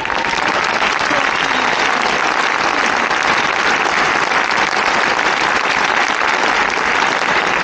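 A large crowd applauding, a dense steady clapping that starts suddenly and holds at full strength.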